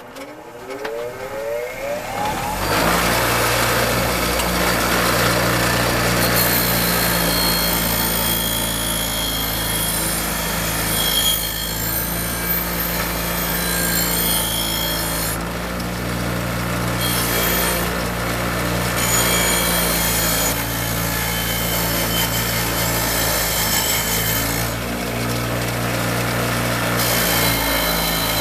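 An electric power tool spins up over about two seconds, then runs steadily, its motor hum under a rough grinding hiss as it works rusty cast iron. The hiss thins briefly twice, once midway and once near the end, as contact with the metal eases.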